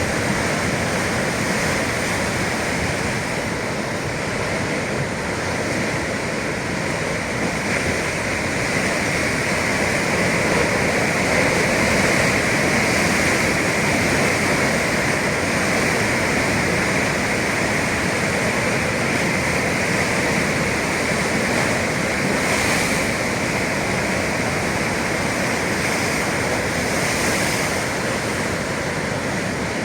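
Sea waves breaking and washing against the shore, a steady rush of surf with no clear pauses between waves.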